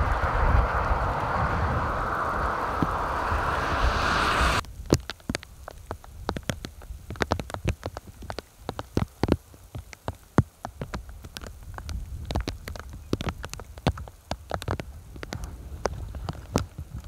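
Steady wind rumble for about four and a half seconds, then a sudden cut to scattered raindrops tapping irregularly, a few each second, some louder than others.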